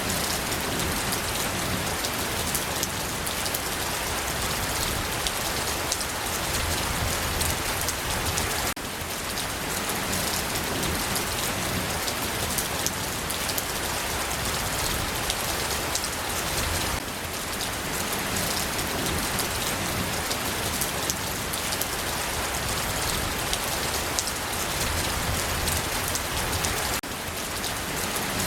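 Steady rainfall on a surface, a dense even hiss with many small individual drop ticks through it. The level drops slightly and abruptly three times, as at the joins of a looped recording.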